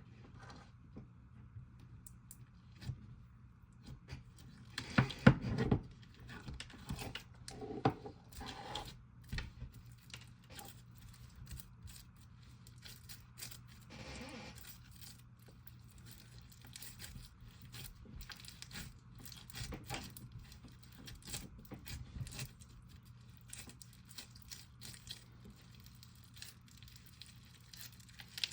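Jelly cube slime being kneaded and mixed by hand with DIY clay, giving irregular sticky clicks and crackles, with a louder burst of handling noise about five seconds in.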